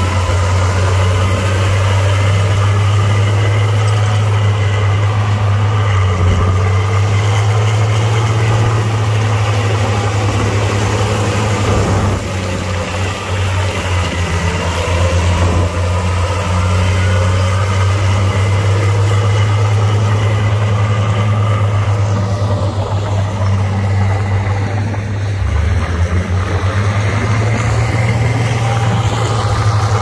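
Heavy diesel earth-moving machinery running: a loud, steady, deep engine drone, with a brief dip in level about twelve seconds in and faint rising and falling pitch changes in the middle.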